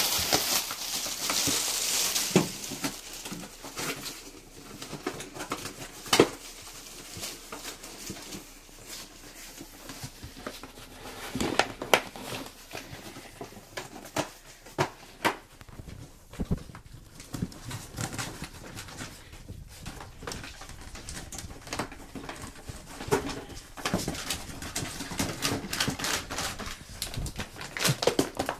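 Miniature pinschers rooting around in a cardboard box: plastic air-pillow packing and food packets crinkling and rustling, loudest in the first few seconds, with scattered knocks and taps against the cardboard.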